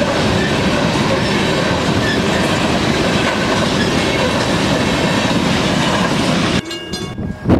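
A Union Pacific freight train passing close at speed: the diesel locomotives go by, then a string of coal hopper cars follows with a steady rumble and wheel clatter on the rails. The sound drops away suddenly near the end.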